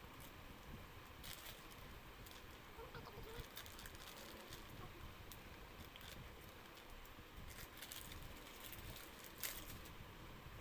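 Quiet, scattered crackling as Kurkure corn puffs are chewed and the plastic snack packet is handled, with a sharper crackle near the end.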